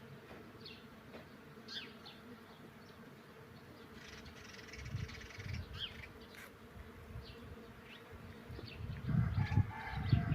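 Faint outdoor quiet with an insect buzzing and scattered short bird chirps, louder near the end.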